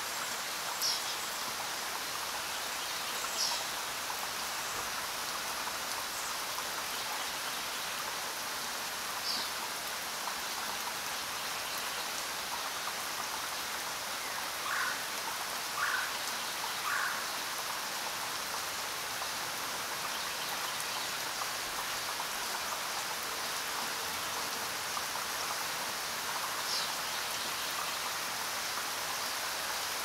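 Steady rain falling, an even hiss throughout. A few brief high chirps come through it, and about halfway there are three short calls, about a second apart.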